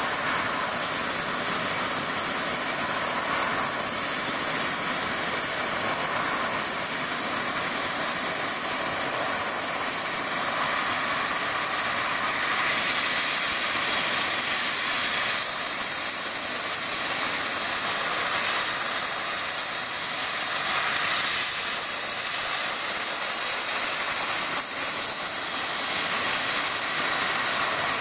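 500 W CNC fiber laser cutting machine cutting 2 mm galvanized steel sheet: a loud, steady, high hiss from the cutting head as it works along the sheet, unbroken throughout.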